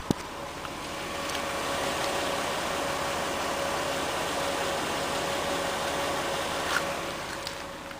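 VW 24-valve VR6 engine running steadily at idle, with a constant whine over the running sound. A couple of sharp clicks come right at the start.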